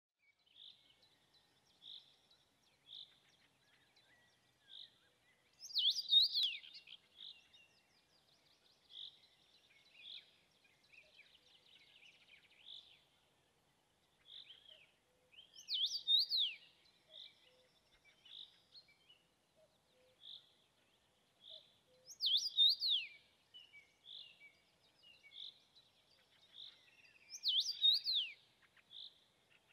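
Male common rosefinch singing its whistled song: four loud, clear phrases, each about a second long and sliding up and down in pitch, several seconds apart. Short soft chirps come between the phrases.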